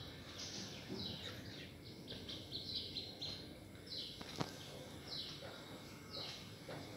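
Felt-tip marker squeaking on a whiteboard during writing strokes: short, high squeaks falling in pitch, about one a second, with a quick run of them near the middle. There is a single sharp tap a little after four seconds in.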